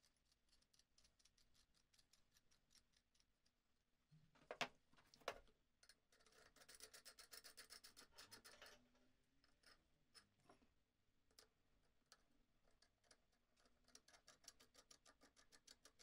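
Threaded metal handle sections of a carpet sweeper being screwed together by hand: faint, rapid, scratchy ticking of metal threads turning against each other. There are two sharper clicks about four and a half seconds in, and a louder burst of fast rasping ticks a couple of seconds later.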